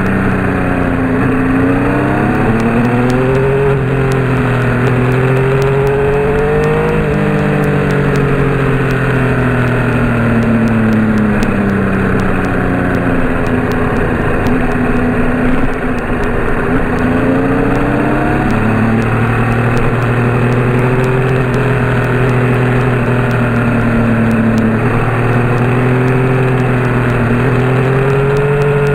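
A motor vehicle's engine running while under way, its pitch climbing and dropping back again and again as it speeds up and slows.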